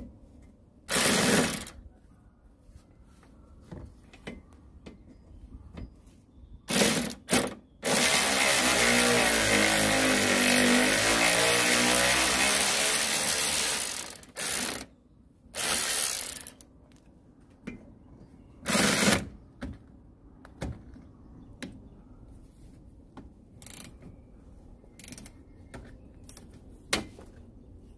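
Cordless electric ratchet whirring in short bursts and one longer run of about six seconds, backing out the 10 mm screws of a car's plastic engine undertray. Small clicks and knocks come between the runs.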